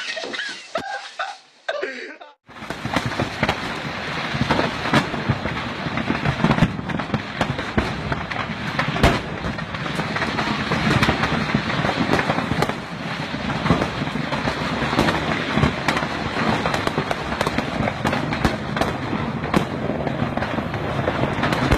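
A dense, unbroken barrage of firecrackers exploding: rapid sharp cracks and bangs over a constant crackle. It starts abruptly about two and a half seconds in.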